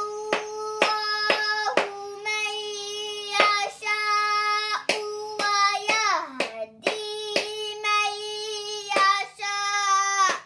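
A high voice reciting Arabic Quranic phrases from an Iqra reader in long, drawn-out sung notes, with sharp taps of a pointer on the page marking the syllables about once or twice a second. A little past halfway the voice slides down in pitch, and near the end the recitation stops abruptly.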